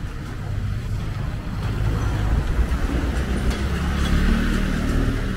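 A car engine running close by in the street, its low rumble growing louder about halfway through as it draws near.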